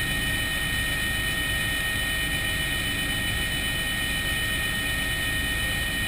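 Helicopter in flight heard from inside the cabin: a steady, unbroken drone of engine and rotor noise with a high, even whine over it.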